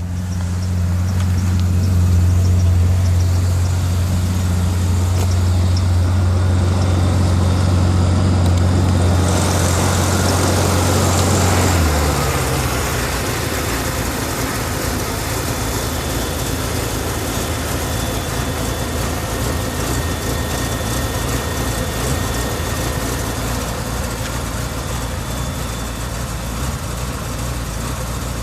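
BMW E38 750i's M73 V12 idling after a cold start: a steady low drone that drops away about twelve seconds in, leaving a rougher, noisier running sound, with a hiss from about nine seconds in. The engine shakes at idle, which the diagnostics read as random misfires in all cylinders.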